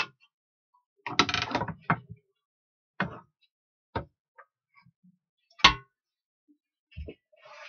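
Tools being handled on a wooden workbench around a handsaw: a short scraping rasp about a second in, then scattered knocks and clinks, the loudest a little past halfway.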